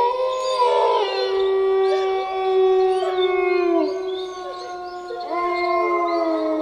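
Wolves howling in chorus: several long, overlapping howls at different pitches, some held steady and some sliding down, with a fresh howl rising about five seconds in.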